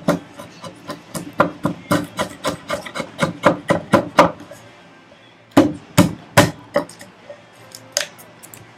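Stanley No. 71 hand router plane taking short cuts in the wood of a housing dado, about two scraping strokes a second, then a brief pause and a few sharper strokes in the second half.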